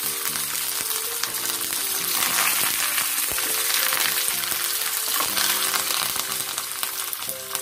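Dried red chillies and fresh curry leaves sizzling in hot oil in a small aluminium tempering pan, a steady frying hiss with fine crackling as the leaves hit the oil.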